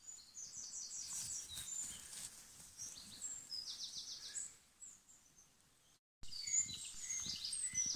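Small songbirds singing: high, rapid trills and short chirps, repeated several times, with a faint low rustle underneath. The sound drops out completely for a moment about six seconds in.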